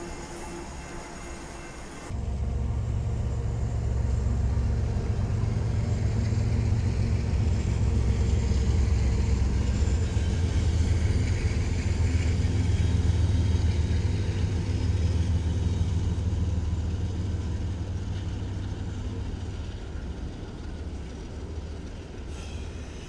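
A lash-up of BNSF and CSX diesel locomotives passing close by, a deep, steady engine rumble that starts abruptly about two seconds in, swells through the middle and slowly fades near the end.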